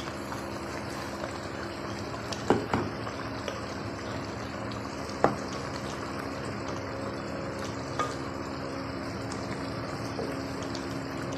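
Thick curry simmering and bubbling in an aluminium pot on a gas burner while a wooden spoon stirs and scrapes it, with a few sharp knocks of the spoon against the pot over a steady low hum.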